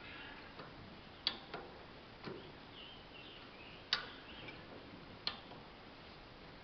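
Five sharp metallic clicks, irregularly spaced about a second apart, each with a short ring, from a hand-worked metal lifting tool.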